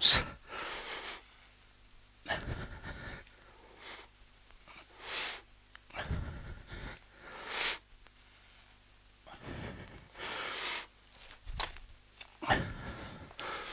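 A man's heavy breathing from exertion during yoga moves: short, noisy breaths through the nose and mouth every second or two, with a faint knock about two seconds before the end.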